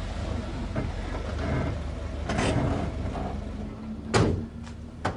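Ambulance van's engine running with a steady low rumble, a brief rush about two seconds in, then a sharp door clunk just after four seconds and a smaller one near the end.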